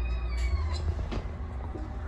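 Kitten meowing: one high, drawn-out meow that falls slightly in pitch and trails off under a second in, over a steady low rumble.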